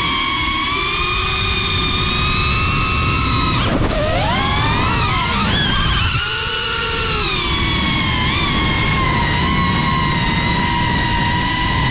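FPV quadcopter's motors and propellers whining, heard through its onboard camera: the pitch dips and climbs sharply with a throttle change about four seconds in, wavers again a few seconds later, then holds steady. A dense low rush of wind on the microphone runs underneath.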